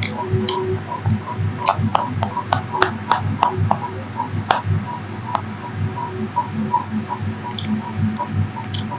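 Small steel bowls clinking against metal dinner plates as their contents are poured over rice, a cluster of sharp clinks between about two and five seconds in. Under them runs a steady hum with a faint regular ticking, about three a second.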